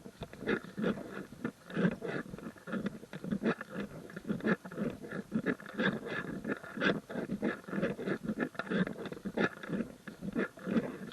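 Footsteps crunching on a gravel trail at a steady walking pace, about two steps a second.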